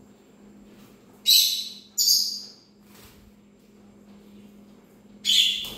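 A parrot gives three loud, short, harsh calls: two close together about a second in and a third near the end. A steady low hum runs underneath.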